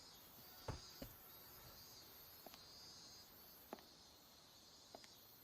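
Near silence: faint room tone with a few short, faint clicks, about five of them scattered through.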